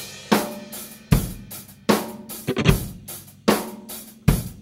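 Punk-rock drum kit playing alone on a studio recording: a cymbal crash with kick drum about every 0.8 seconds, six times, with snare hits in between.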